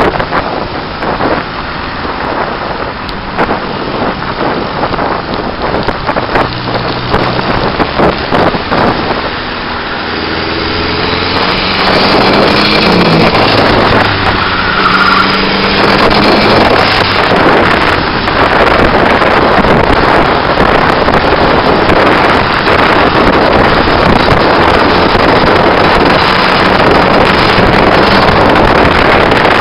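Heavy wind buffeting on a microphone mounted low on the outside of a moving car, over tyre and road noise. The 1990 Nissan Bluebird's turbocharged SR20 four-cylinder is heard revving up and down in the first half, then the wind noise grows louder about twelve seconds in and covers it.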